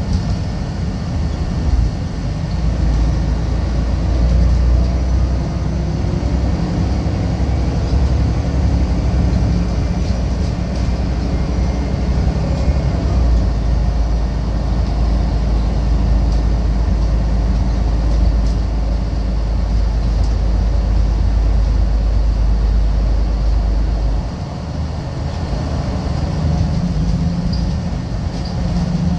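Volvo B12BLEA articulated bus under way, heard from inside the rear section: a steady deep engine drone with road and body noise. Near the end the deep rumble drops away and the ride grows quieter.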